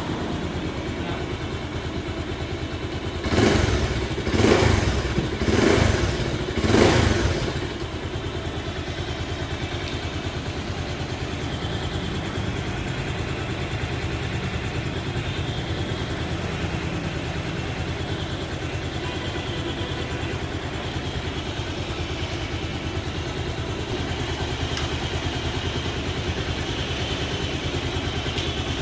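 Bajaj Pulsar 220's single-cylinder engine idling steadily, blipped four times in quick succession about three to seven seconds in, then settling back to idle.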